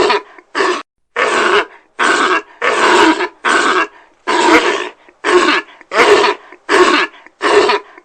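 An animal grunting over and over: about a dozen short, rough calls, roughly one every half second.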